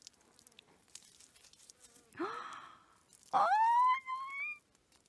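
Water splashing briefly from a plastic bottle over a gold nugget held in a palm, rinsing off the dirt, about two seconds in. Just after, a loud, high call rises quickly in pitch and holds for about a second.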